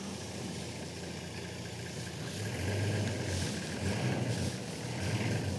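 Game-drive vehicle's engine running at low revs, a steady low hum that grows louder for a moment about halfway through.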